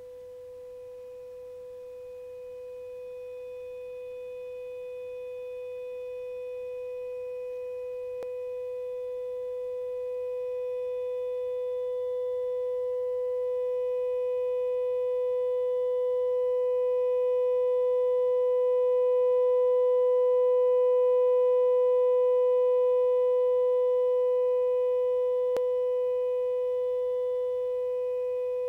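A 500 Hz sine test tone played through a Bugera V22 guitar amplifier with its digital spring reverb turned up full. The steady tone has faint overtones and swells gradually louder, peaking about three-quarters of the way through and easing a little near the end. A faint grainy noise lies under it: noise modulation from the amp's digital reverb, which rises with the signal level.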